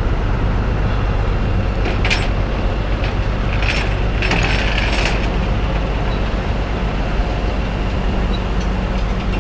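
Truck engine idling steadily, with bursts of metallic rattling and clinking about two seconds in and again around four to five seconds in.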